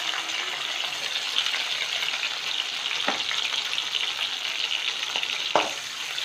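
Garlic cloves sizzling in hot oil in a wok with dried red chillies and peppercorns, a steady frying hiss. Two sharp knocks, about halfway and near the end, as a perforated spatula starts stirring in the pan.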